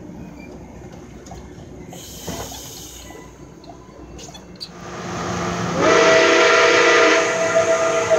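Steam locomotive's chime whistle blowing one long blast of several tones at once. It comes in out of a rising hiss about five seconds in, over the noise of passenger cars rolling past.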